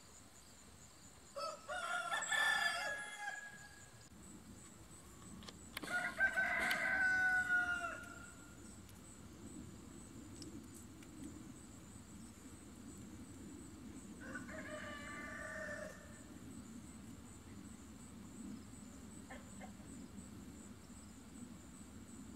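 Rooster crowing three times, each crow about two seconds long: one about a second and a half in, one about six seconds in and one about fourteen seconds in. The second crow is the loudest and ends on a falling note; the third is the faintest.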